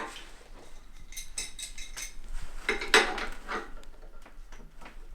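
Metal clinks and scrapes of a wrench tightening the air-hose fitting on a high-pressure compressor: a run of irregular clinks, the loudest about three seconds in.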